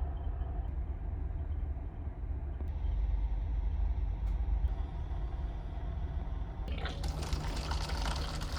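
Steady low rumble of a ferry's engines heard on board, with a loud rushing hiss of water starting about two seconds before the end.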